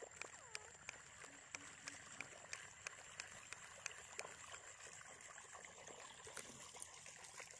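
Faint water trickling and lapping around a small boat, with scattered light ticks over a steady high-pitched hiss.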